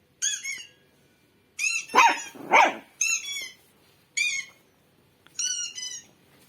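A puppy barks twice, about two seconds in, among a run of short, high-pitched squeaky calls that repeat roughly once a second.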